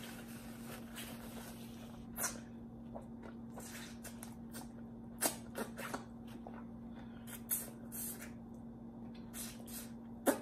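Close-up eating mouth sounds: lips smacking and sucking at fingers and turkey neck bone, a scattered handful of short wet smacks every second or two, over a faint steady hum.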